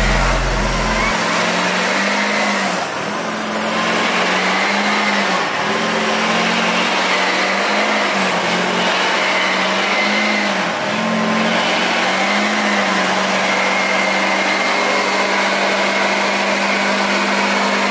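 Pickup truck doing a burnout: the engine is held at high revs while the rear tyre spins on the pavement, making a loud, steady mix of engine and tyre noise. The engine note wavers up and down every second or two.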